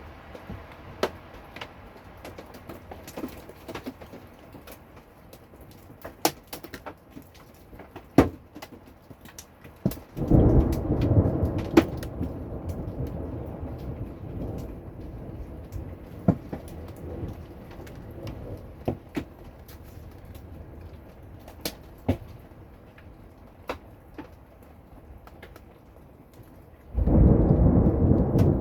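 Steady rain with scattered sharp taps of drops on a hard surface, broken by two rolls of thunder: one about ten seconds in that fades over several seconds, and a louder one near the end.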